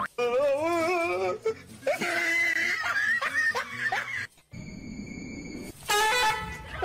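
Edited-in music and comic sound effects: wavering, warbling pitched sounds, broken about four and a half seconds in by a steady high electronic tone lasting about a second.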